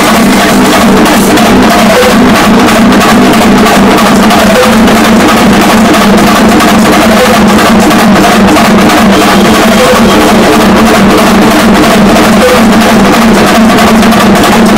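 Chenda drums beaten with sticks and ilathalam hand cymbals clashing together in a Kerala percussion ensemble, playing a loud, dense, unbroken beat.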